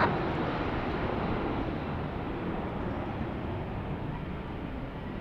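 Airbus A321's twin IAE V2500 turbofan engines at takeoff thrust during the takeoff roll, a steady noise that fades gradually as the jet moves away.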